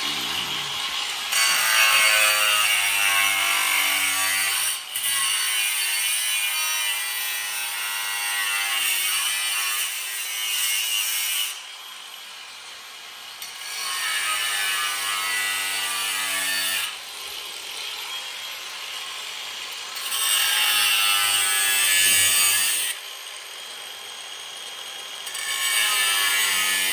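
Handheld power tool cutting a piece off the custom exhaust muffler's tip so it fits. It runs in about four long passes, with short pauses between them.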